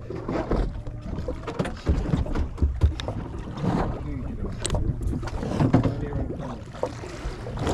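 Small fishing boat at sea: a steady low engine hum under irregular knocks and clatters, with some wind on the microphone.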